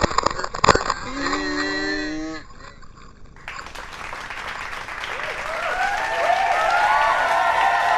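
Water splashing hard against the camera lens, then a short vocal sound. From about halfway through, a rising wash of noise with many overlapping voices, like people cheering.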